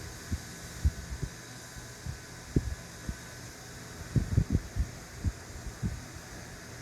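Irregular dull knocks and bumps from hands handling parts and tools during a car door latch repair, with a cluster of them about four seconds in, over a steady low hum.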